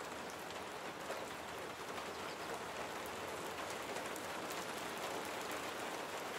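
Steady rain: an even hiss with scattered faint drop ticks.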